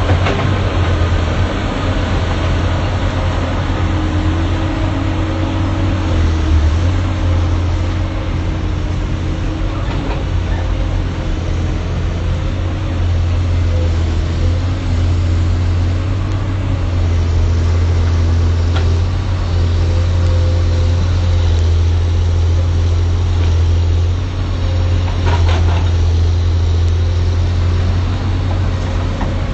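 Excavator's diesel engine running steadily, with a few faint knocks now and then.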